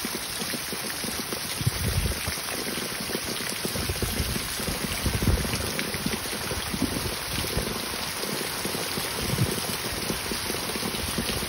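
Heavy rain pouring down in a steady hiss, with short gusts of wind buffeting the microphone every few seconds.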